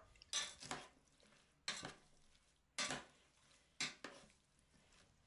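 A metal spoon stirring salad in a pot, scraping and clinking faintly against the pot's side about once a second.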